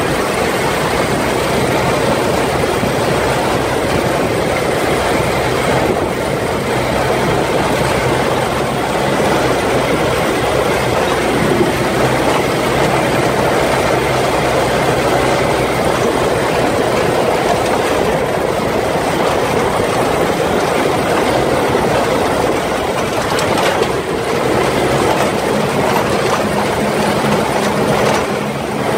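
Off-road buggy driving along a rough dirt track: its engine running steadily under way, mixed with rumble from the tyres on the track.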